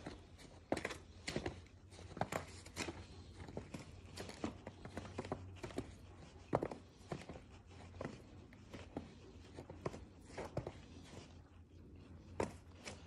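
Footsteps crunching in snow, irregular steps with a short crunch each, over a steady low hum.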